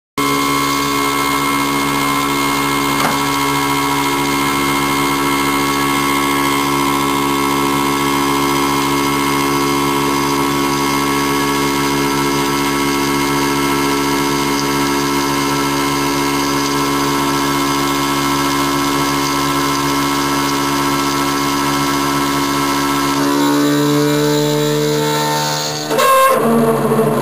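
CNC milling machine running, its spindle turning a 6 mm HSS end mill at about 4000 rpm as it cuts a contour into metal plate: a steady machine whine made of several fixed tones. About 23 seconds in the tone shifts, and near the end it dips briefly before picking up again.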